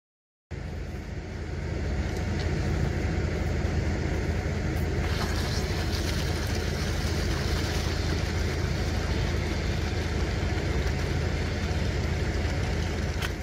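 An engine running steadily with a low rumble, mixed with the hiss of water forced through a firefighting mist lance driven into peaty ground. The hiss gets louder about five seconds in.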